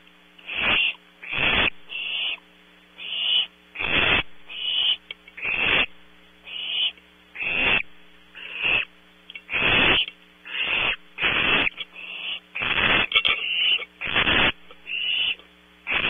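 Barn owl owlets giving rasping hiss calls in a steady series, about one to two a second, long loud hisses alternating with shorter, softer, higher ones as if from more than one chick. This hissing is the owlets' begging call. A faint steady electrical hum lies underneath.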